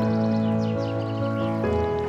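Background music: a soft new-age instrumental with sustained chords over a bass line, moving to a new chord near the end.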